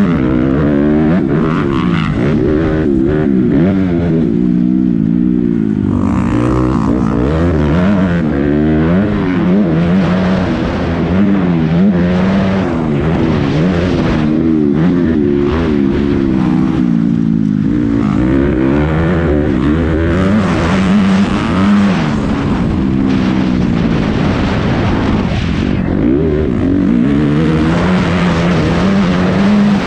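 Motocross bike engine heard onboard through a helmet camera, revving up and down again and again as the rider accelerates, shifts gears and backs off through the track's corners and straights. A steady hiss runs over it.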